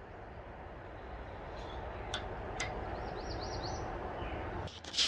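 Outdoor ambience: a low rushing background that slowly grows louder and drops away near the end, with a few light clicks of handling at the telescope and a small bird chirping a quick run of notes about three seconds in.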